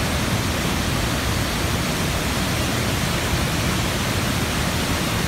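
Steady, even rush of water from the large multi-tiered Bản Giốc Waterfall, its many cascades pouring into the pool below.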